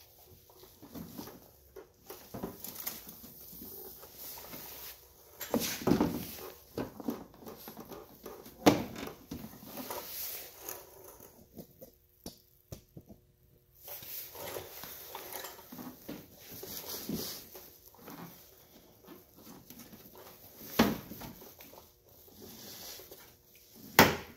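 Plastic wheel-well liner being bent and worked out of a pickup's fender by hand: irregular scraping and rubbing of plastic with scattered sharp clacks and knocks, the loudest about nine seconds in and just before the end.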